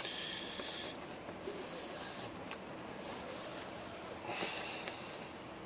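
Nylon 550 paracord sliding and rubbing as it is pulled through a tight knife-handle wrap: three short swishes about a second apart.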